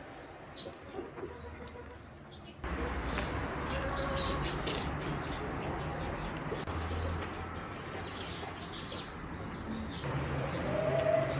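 Birds chirping, short high calls repeating throughout, over a background that gets louder suddenly about two and a half seconds in.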